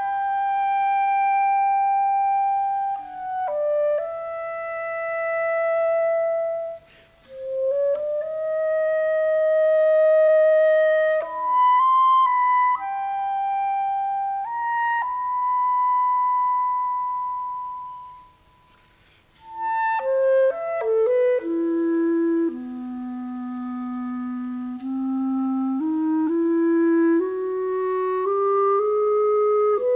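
Background music: a slow solo woodwind melody of long held notes. It breaks off briefly past the middle, then comes back in a lower register and climbs step by step near the end.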